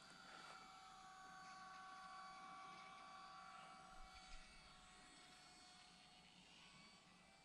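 Faint, steady high-pitched whine of a small RC motor glider's electric motor and propeller in flight, fading slowly in the second half. A couple of soft knocks about four seconds in.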